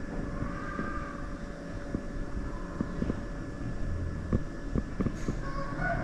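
Low, steady vehicle rumble with wind on the microphone, and a few light clicks in the second half.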